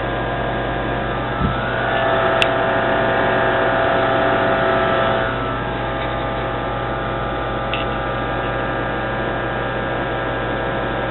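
Steady electrical hum of an IMSAI 8080 and its Shugart SA800 8-inch floppy drives running while a disk is read, with a few short clicks. The hum swells louder for about three seconds near the start.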